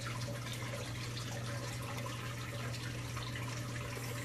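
Steady background hiss with a low, constant hum: room tone with no distinct event.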